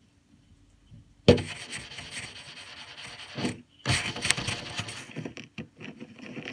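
Handling noise on a phone's microphone: coat fabric and gloved hands rubbing and scraping against it. A sudden loud scrape about a second in, then two long stretches of rubbing with a brief break between, then shorter scuffs.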